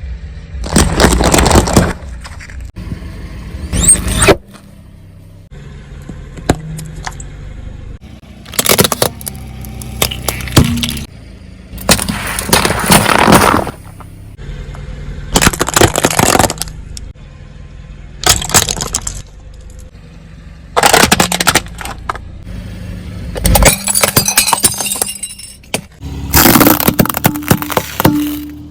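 A car's tyre rolling over and crushing objects: a series of about nine loud crunching, cracking bursts a second or two apart, with a low steady background between them.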